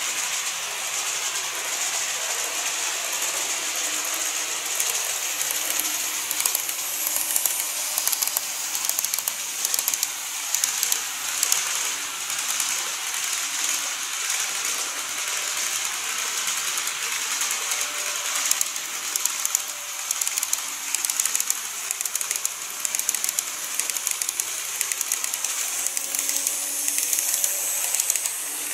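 N-scale model trains running on the track: a steady high hiss of wheels and motors, with quick irregular clicks as the wheels cross the rail joints.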